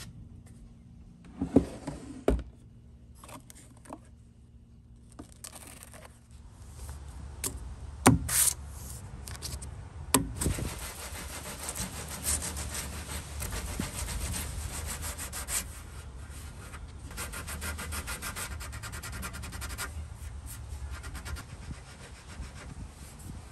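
Sandpaper on a hand sanding block rubbed back and forth along the edge of a bare wooden dresser top, a continuous scratchy rasp of quick strokes. A few knocks in the first couple of seconds, and two louder hits around eight and ten seconds in.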